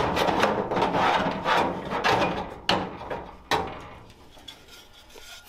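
Steel window regulator being worked inside a truck door shell: metal scraping and rattling against the sheet metal, with two sharp clunks near the middle, then quieter rattling.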